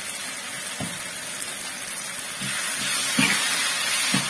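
Onions, tomatoes, chilli powder and turmeric sizzling in oil in a frying pan. About two and a half seconds in, a metal ladle starts stirring, knocking against the pan, and the sizzle gets louder.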